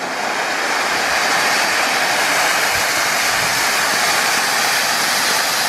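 Firework ground fountain spraying sparks with a steady, loud hiss that swells over about the first second and then holds level.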